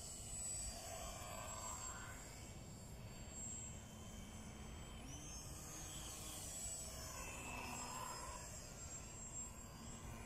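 Faint, steady whine of a small round-the-pole model airplane's motor and propeller as the high-wing model flies in circles on its tether, swelling slightly twice as it comes round.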